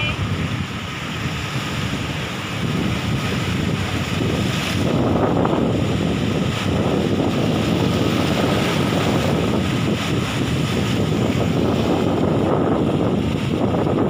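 Sea waves breaking and washing over a rocky shore, with wind buffeting the microphone. The surf swells louder from about three to five seconds in and then stays loud.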